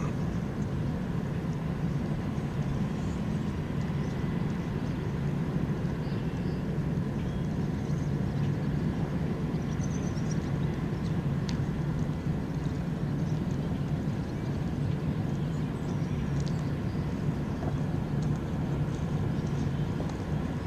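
Great Lakes freighter Herbert C. Jackson passing close, its machinery giving a steady low rumble, with a few faint high chirps over it.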